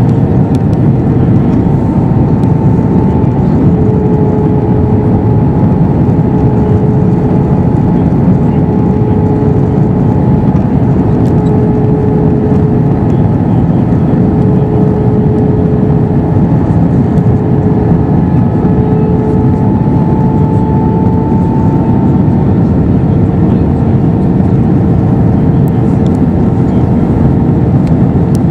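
Steady cabin drone of an Airbus A321-212 in flight, the noise of its CFM56 engines and the airflow heard from a window seat, with a faint humming tone that shifts slightly in pitch now and then.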